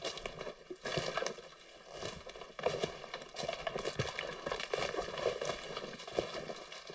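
Footsteps walking over the forest floor: an uneven run of rustling steps.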